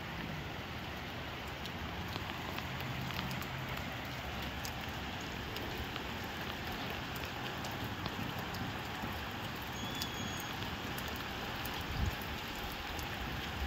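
Steady rain falling, with individual drops ticking on a surface throughout. A short low thump about twelve seconds in.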